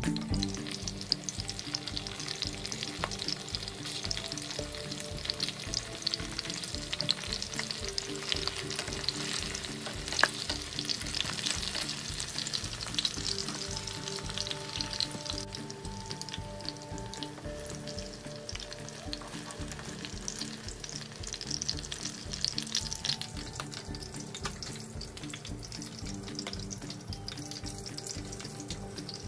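Embutido slices frying in shallow oil in a nonstick pan: a steady sizzle dense with small crackling pops of spattering oil.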